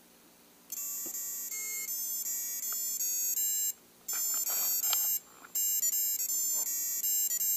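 Electronic buzzer on a battery-powered LED star kit playing a beeping tune: a string of short notes stepping up and down in pitch, starting about a second in, with two brief breaks. Its batteries are wearing down.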